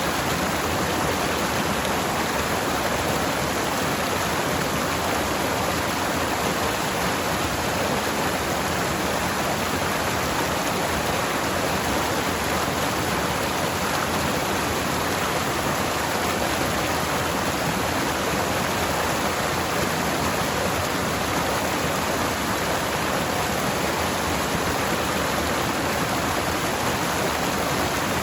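Forest stream flowing over rocks, a steady rushing and splashing of water.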